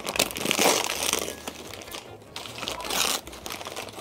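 Paper napkin crinkling and rustling as it is handled, loudest through the first second and again about three seconds in.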